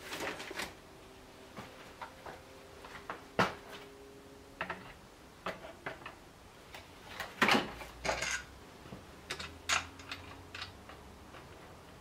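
Scattered clicks and knocks of hard plastic and metal parts being handled during reassembly of an Elite Turbo Muin bike trainer, as its plastic cover is fitted over the aluminium housing. The knocks come irregularly, the loudest a cluster about seven and a half seconds in.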